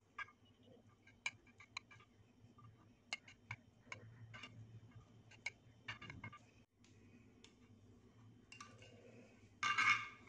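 A knife cutting through set agar agar (china grass) halwa in a glass baking dish, the blade clicking against the glass at irregular intervals, with one louder, brief scrape near the end.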